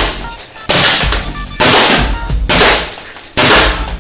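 Homemade semi-automatic compressed-air gun, run at 10 bar, firing steel BBs in a string of sharp blasts about one a second, each trailing off quickly. Background music plays underneath.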